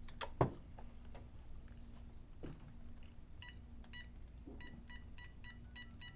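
Mobile phone keypad beeps as a number is keyed in: about ten short, identical beeps at uneven spacing over the last three seconds. About half a second in, a brief louder mouth noise from eating.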